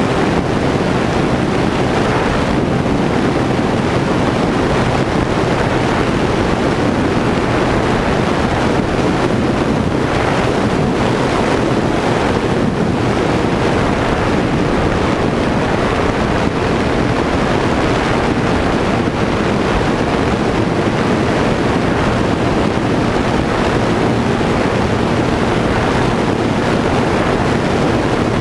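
Steady rush of wind over the onboard camera of a fixed-wing FPV plane in flight, mixed with the constant hum of its electric motor and propeller.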